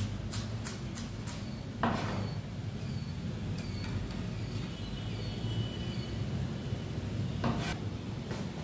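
Kitchen knife chopping vegetables on a plastic cutting board: a quick run of knife strokes, about four a second, then scattered cutting with two louder single knocks, about two seconds in and near the end, over a steady low background hum.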